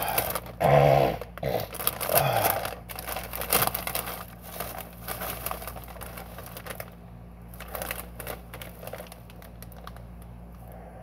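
Foil-lined potato chip bag crinkling and crackling as it is pulled open and handled. It is loudest in the first few seconds and thins to light rustles after about seven seconds.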